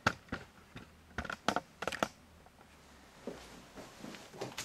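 A quick run of sharp clicks and taps in the first two seconds, then fainter rustling handling noise.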